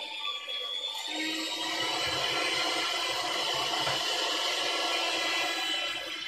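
Electric hand mixer with dough hooks kneading dough: the motor switches on with a click about a second in and then runs steadily.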